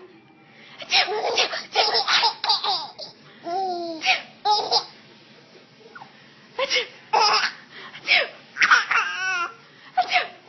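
A seven-month-old baby laughing in short bursts over and over, some of them high and warbling, set off by her mother's sneezing.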